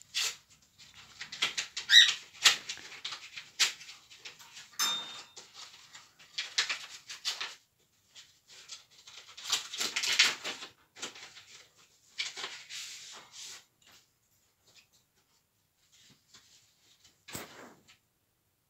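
Paper rustling and tearing in irregular bursts as card envelopes are torn open and the cards pulled out, with a brief squeak about two seconds in.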